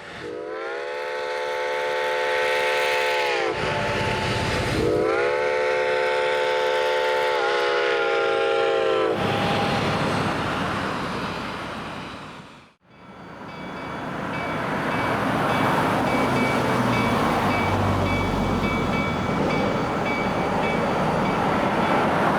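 Steam chime whistle of Reading & Northern 4-8-4 locomotive 2102 sounding two long blasts, the pitch rising as each opens. After a break, the train rolls past with steady wheel-on-rail noise and a low rumble.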